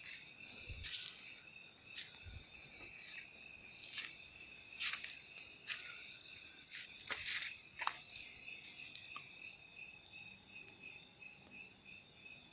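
Steady chorus of crickets and other insects trilling at several high pitches, with scattered short snaps and rustles.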